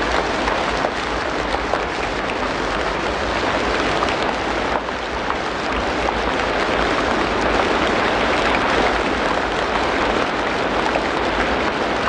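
Steady rain falling: an even, dense hiss with small scattered ticks of drops.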